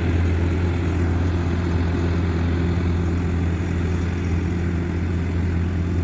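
Rice combine harvesters' diesel engines running steadily while harvesting: a constant low drone that does not change.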